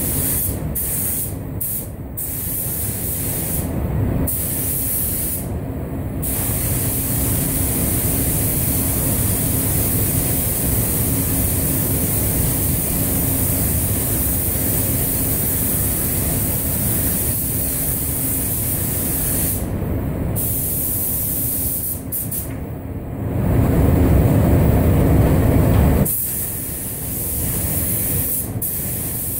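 Compressed-air gravity-feed spray gun hissing as it sprays paint, the air cutting off briefly several times as the trigger is released. Underneath runs the steady drone of the spray booth's ventilation. A louder, deeper rush lasts a few seconds near the end.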